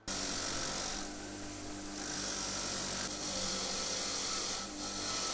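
Wire wheel on a bench grinder spinning with a rusty steel drill chuck pressed against it: a steady motor hum under a loud hiss of wire brushing on metal as the rust is stripped off, the level dipping slightly now and then.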